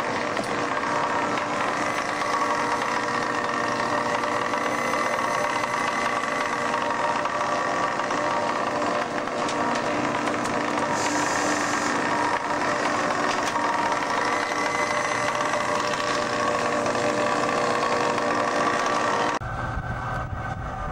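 A fishing vessel's engine and deck machinery running steadily, a continuous mechanical hum with a few held tones over a noisy wash. Near the end it changes abruptly to a deeper, duller rumble.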